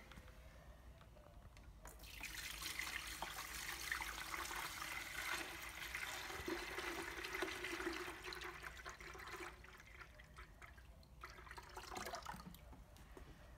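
Tap water poured into the clear plastic filter bowl of a Blue Evolution S+ steam-vacuum, splashing and filling the bowl. The pouring starts about two seconds in and stops about a second before the end.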